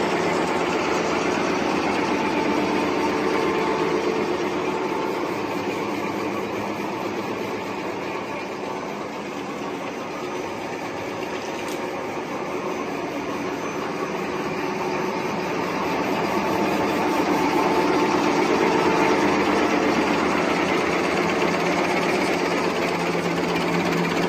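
High-speed napkin paper folding machine running: a steady, dense mechanical clatter and whir from its rollers and folding gear, somewhat quieter around the middle and louder again in the second half.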